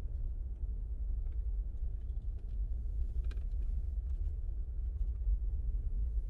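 Steady low rumble of a Jeep driving slowly along a paved road: engine and tyre noise.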